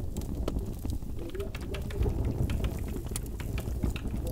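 Urban ambience of a steady low rumble with many small, irregular clicks and crackles over it.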